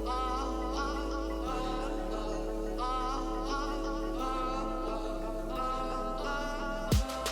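Music: a sung melody with wavering vibrato over steady held chords. Near the end a sharp hit comes in and a beat starts.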